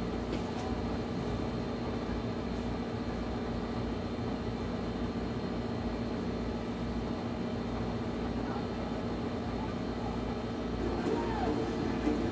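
Steady mechanical hum with a low droning tone running under it, as from a running appliance motor.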